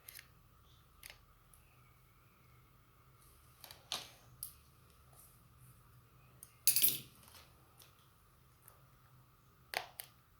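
Small clicks, taps and scrapes of an 85 W MagSafe 2 charger's parts being handled during repair, with a louder short rattle about seven seconds in. A faint steady high hum sits underneath.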